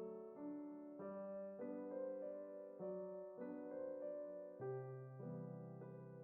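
Soft background piano music, a slow run of sustained chords changing about every half second to second.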